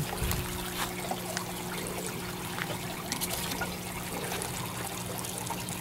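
Water trickling in a gravel-bed aquaponics system, with a steady low hum underneath.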